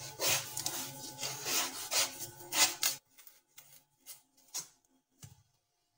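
A knife cutting through a muskmelon in a run of repeated strokes. The strokes stop abruptly about halfway through, leaving only a few faint taps.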